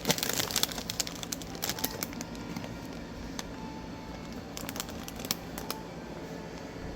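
Crinkling and rustling of packaging being handled, with scattered clicks and light clatter, busiest in the first second.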